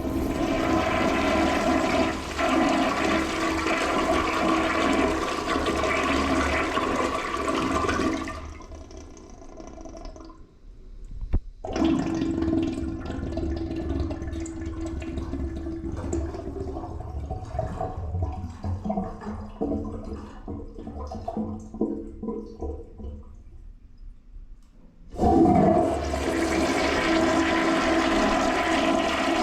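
Toilets flushing: a loud rushing flush that dies away about eight seconds in, a sharp click, then a weaker, uneven flow of water that trails off. Near the end another flush starts suddenly at full force.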